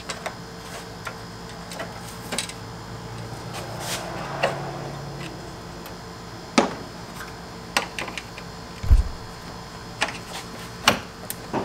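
Scattered clicks and knocks of a hand tool working the plastic and metal fasteners around a car's AC condenser, with a heavier thump about nine seconds in, over a steady hum.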